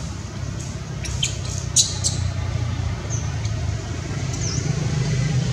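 Steady low outdoor rumble with a few short, high chirps and clicks scattered through it, one of them a brief dipping chirp near the end.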